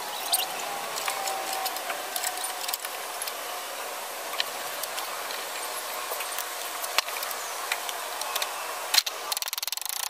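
Scattered light clicks and knocks over a steady hiss.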